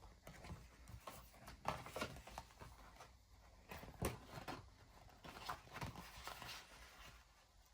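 Faint handling sounds of paper and stickers on a desk: scattered light taps and rustles, a few sharper clicks around the middle.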